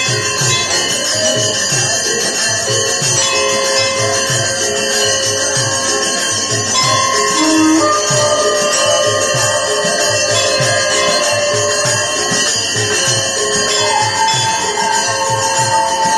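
Devotional music with a steady drumbeat of about two to three strokes a second, jingling cymbals and long held tones above it.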